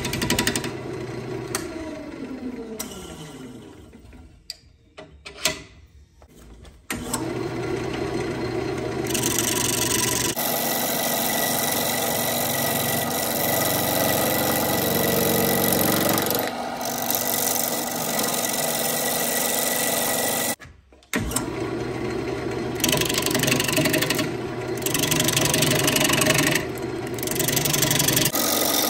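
Wood lathe spinning an ambrosia maple bowl blank while a gouge cuts it, a steady scraping, shaving noise over the motor's hum. In the first few seconds a tone falls in pitch and the sound drops to a quieter stretch with a few knocks. The cutting noise comes back about seven seconds in and breaks off briefly near twenty-one seconds.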